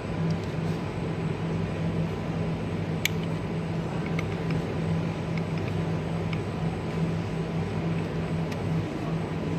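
Stahlfolder buckle folding machine running as it folds sheets into a concertina fold: a steady low mechanical hum with a sharp click about three seconds in and a few lighter ticks.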